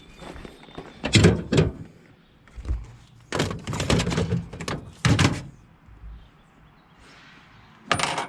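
A series of loud knocks and thuds, some single and some in quick clusters, spread a second or two apart.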